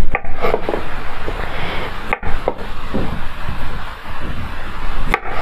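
Kitchen knife paring the spiny peel off a chayote over a wooden board, with repeated slicing and scraping strokes over a steady hiss.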